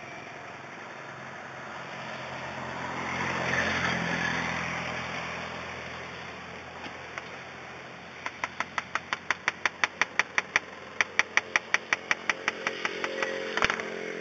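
A motorbike engine swells and fades as it passes in the first few seconds. Later comes a quick, even run of sharp clicks, about six a second, with a short break: a knife chopping a banana pancake into pieces against a plate.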